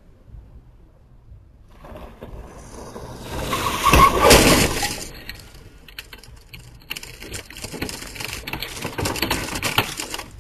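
A Toyota Land Cruiser 200 crashing into a roadside pole: vehicle noise builds for a couple of seconds, then a loud crash comes about four seconds in. A few seconds of cracking and clattering follow near the end as the broken pole gives way.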